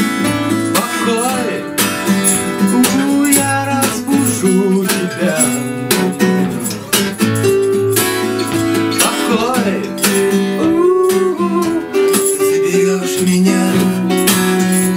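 Two acoustic guitars playing a song, strummed and picked, with hand percussion shaken along in rhythm.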